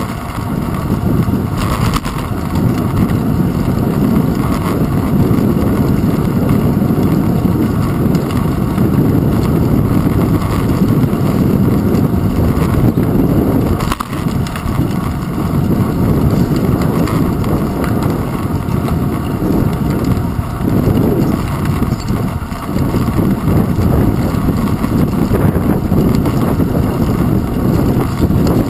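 Bicycle tyres rolling over rough, cracked asphalt, a loud, steady low rumble and rattle picked up through a handlebar-mounted camera in its housing, easing briefly about halfway through.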